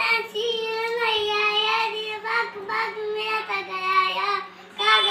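A young boy singing in long, held, gliding notes, with a short pause near the end, over a faint steady low hum.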